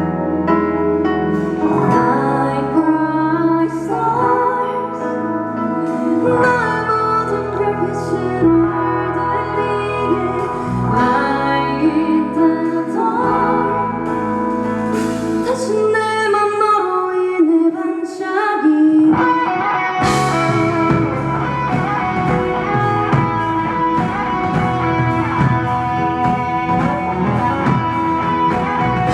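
Live rock band performing a song: a female lead vocal sings over keyboard, guitar and bass. About twenty seconds in, the drums and the full band come in together.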